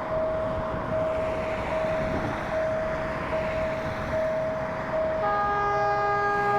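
Locomotive air horn sounding a loud multi-note chord that starts about five seconds in and holds. Before it there is a steady single whistling tone, broken briefly about every 0.8 s, over low rumbling train noise.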